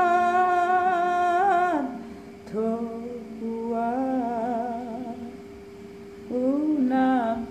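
A woman singing slowly and alone, drawing out long notes with a slight waver, in phrases broken by short pauses, in a small room.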